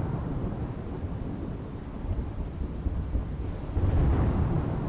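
Thunder rumbling over steady rain, as a storm sound effect: one rumble fading out in the first second and another swelling about four seconds in.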